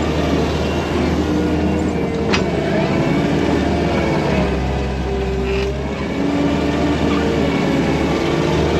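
Diesel engine of the earthmoving machine running steadily under load, its pitch rising and falling slightly as it pushes wet topsoil.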